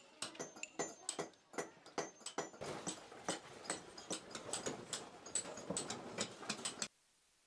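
Masons' hammers and chisels striking stone by hand: irregular sharp taps and ringing metallic chinks, several a second and overlapping from more than one worker, stopping abruptly near the end.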